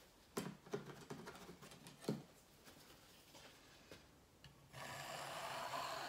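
A few light knocks and clatters of handling in the first two seconds, then, near the end, the tines of a hair pick scraping across a wet, paint-covered canvas in one steady stroke of under two seconds.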